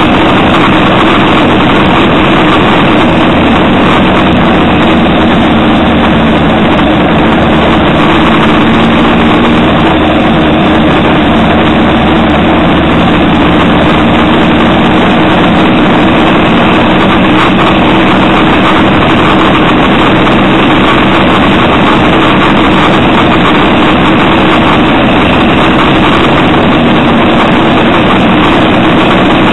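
Motorcycle on the move, heard from on board: its engine running steadily under loud, constant wind noise on the microphone.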